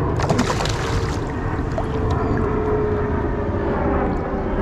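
A small motor hums steadily over a constant low rumble of noise, with a short burst of crackling in the first second.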